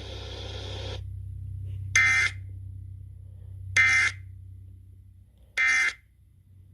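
Emergency Alert System end-of-message data bursts: three short, harsh digital screeches about two seconds apart, signalling the end of the tornado warning broadcast. A low steady hum runs underneath.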